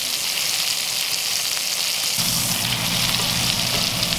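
Elk filet mignon steaks searing in butter and garlic in a cast-iron skillet, a steady sizzle. About two seconds in, a low steady hum joins underneath.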